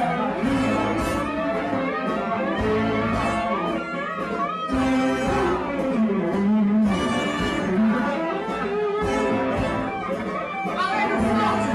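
Live rock band playing, with electric guitar prominent over bass and drums, heard loud and continuous from among the audience.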